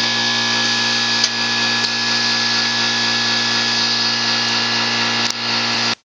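Electric air compressor running steadily with a loud, even motor drone, with a few sharp clicks over it; the sound cuts off abruptly near the end.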